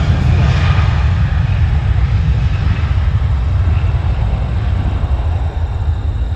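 Boeing 737-700 airliner's CFM56 jet engines as it departs: a loud, steady low rumble with a hiss above it, easing slightly near the end.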